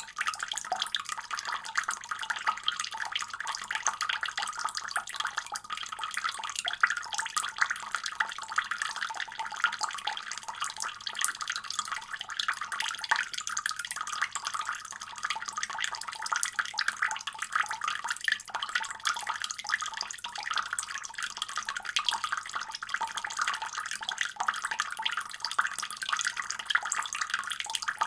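Water running steadily from a faucet, splashing with a fine, continuous patter.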